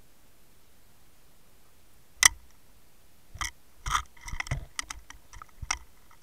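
Sharp clicks and knocks picked up underwater by the camera: one loud click about two seconds in, then an irregular flurry of smaller clicks and knocks.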